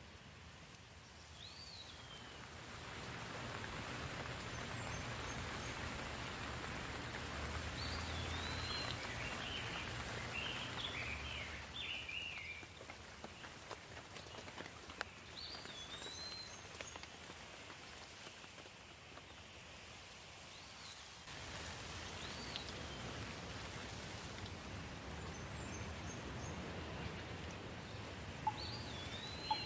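Steady rain falling, with birds calling now and then in short whistled and chirping calls. The rain swells a couple of seconds in, eases around the middle, and picks up again abruptly about two-thirds of the way through.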